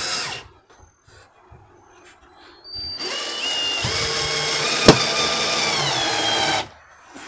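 Cordless drill running into wood: a short burst right at the start, then after a pause a steady run of about three and a half seconds, its pitch sagging just before it stops. A sharp click sounds partway through the run.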